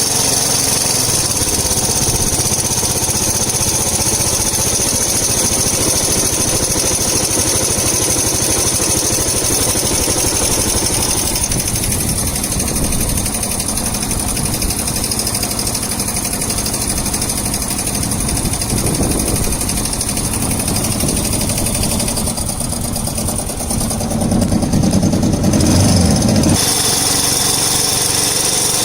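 Yamaha SR 125's single-cylinder four-stroke engine running, with the knocking that the owner suspects comes from a worn connecting rod. It gets louder for a couple of seconds near the end, then settles back.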